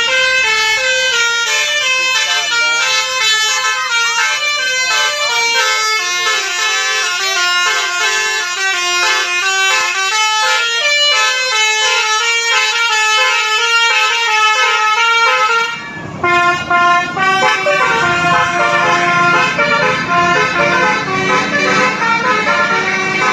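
Indonesian bus 'telolet' Basuri musical air horn playing a tune of short stepped notes in quick succession. About 16 seconds in the sound breaks briefly, and another horn tune carries on over a lower rumble.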